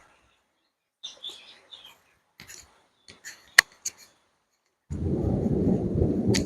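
Faint high bird chirps about a second in, then a few sharp clicks. From about five seconds in, a louder low rumbling noise takes over.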